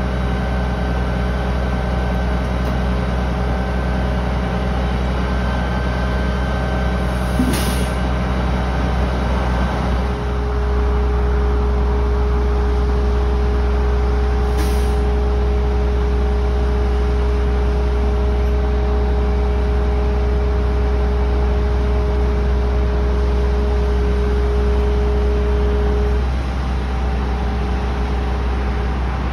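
Heavy crane truck's engine running steadily, with a low hum and a held whine above it; it gets louder about ten seconds in and eases back near the end. Two short hisses of air stand out, a few seconds apart.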